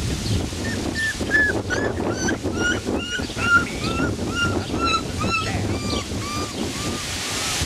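Beagle puppy giving a run of short, high cries, about three a second, slowly falling in pitch, over wind noise on the microphone.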